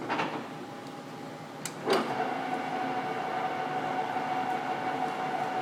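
Timemaster/Gurutzpe Super M 300/4000 gap-bed engine lathe: a clunk just after the start, then another about two seconds in, as the spindle starts up at a high speed and runs on with a steady gear whine.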